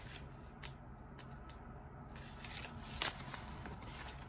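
Canadian polymer banknotes being counted and flipped by hand, giving crisp plastic rustles and a few sharp snaps, the loudest about three seconds in.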